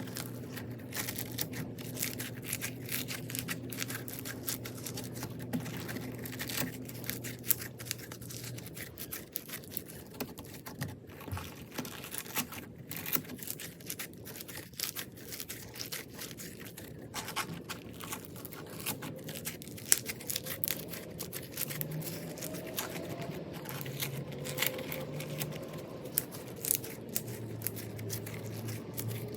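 Crunchy bead-filled slime being squeezed and worked by hand, giving a dense, irregular crackling of many small clicks and pops from the beads.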